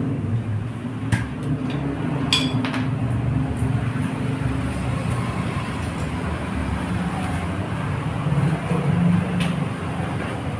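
Steady low rumble with a few light metallic clinks, the sharpest about two and a half seconds in, of hand tools on a motorcycle wheel.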